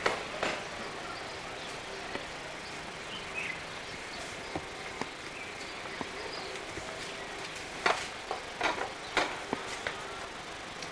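Steady background hiss, with a few sharp clicks or knocks about eight to nine and a half seconds in.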